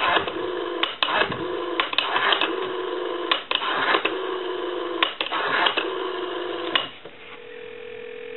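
Telephone-line audio from a call to a time-and-temperature number: a run of short tone segments broken by clicks, then from about seven seconds in a single steady hum.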